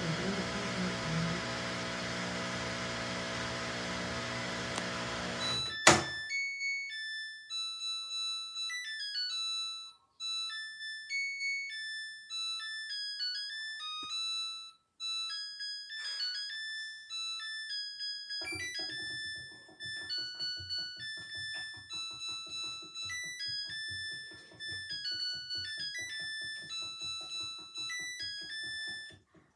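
A steady machine hum for about six seconds, cut off sharply by a click, then electronic keyboard music: a melody of clean chiming notes, with a buzzing lower accompaniment coming in a little past halfway.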